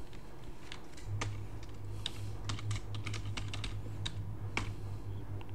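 Computer keyboard being typed on, a run of about a dozen separate, irregular keystrokes as a password is entered at a sudo prompt. A low steady hum runs underneath from about a second in.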